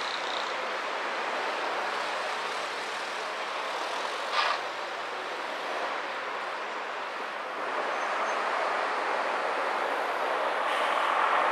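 City traffic heard from a car driving along a busy avenue: a steady rush of engines and tyres. There is a sharp click about four seconds in, and the traffic grows louder over the last few seconds.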